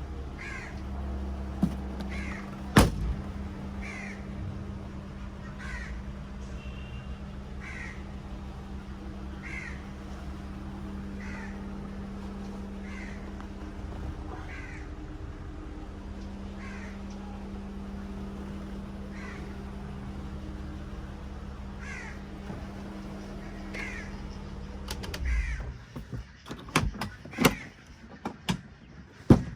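Honda Accord 3.0 L VTEC engine idling steadily, then shut off near the end, followed by a quick series of clicks and knocks. Over it a crow caws about every two seconds.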